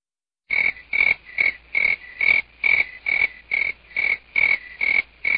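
A comic sound effect edited into the soundtrack: a rapid series of about twelve short, rasping calls, two to three a second, each with a high steady tone. It starts abruptly out of dead silence about half a second in and cuts off sharply at the end.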